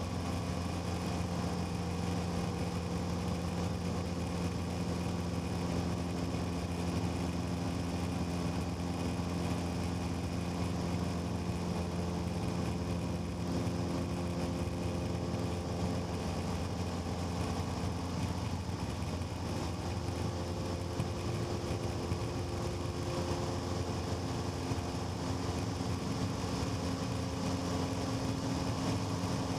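Cessna 150's Continental O-200 four-cylinder air-cooled engine and propeller running steadily, with a slight shift in pitch partway through.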